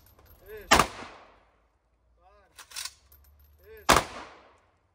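Honour-guard rifle volleys at a military funeral: two volleys about three seconds apart, each a single sharp report with a ringing tail. Each volley is preceded by a shouted command and a short clatter of clicks.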